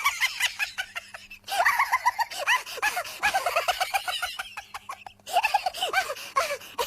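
Cartoonish high-pitched cackling laughter sound effect: fast, rapidly repeated rise-and-fall 'ha' syllables in three runs with two short breaks between them.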